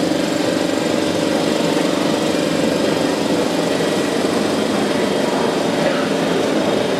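A steady mechanical drone with a few faint steady high tones, unchanged throughout.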